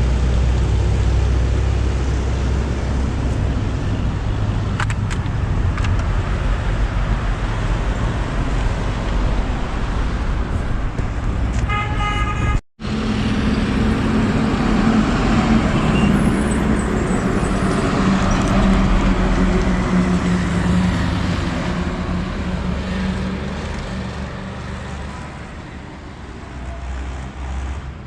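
Road traffic passing on a highway, with a short vehicle horn toot just before twelve seconds in. After a sudden break, a vehicle engine passes close and fades away toward the end.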